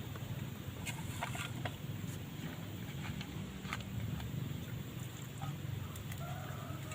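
Steady low rumble with scattered sharp crackles, from a cooking fire under a pot of banana heart boiling. From about six seconds in, a chicken gives a short clucking call.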